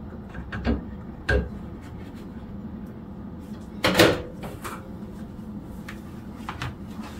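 Microwave oven door being unlatched, opened and shut, making a few sharp clicks and knocks; the loudest knock comes about four seconds in. A dish is taken out of the oven.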